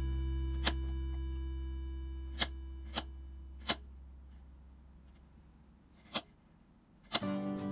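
A kitchen knife slicing baby corn on a wooden cutting board: about five sharp knocks at uneven intervals. They sound over a guitar chord that rings out and fades, and the guitar music starts again near the end.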